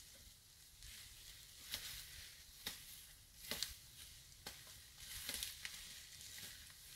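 Faint crackling and rustling of dry grass and twigs, with a sharp crack about once a second over a low wind rumble.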